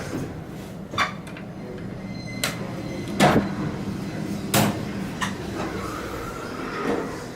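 Sharp clunks and knocks, about five spread over several seconds, over a steady low hum: the door equipment of a 1996 Otis Series 1 traction elevator as the car is called to go down.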